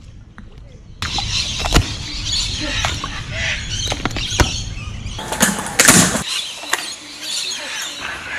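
Crocodile's jaws crunching a large bone: a run of sharp cracks and crunches over a noisy background, the loudest coming about five to six seconds in.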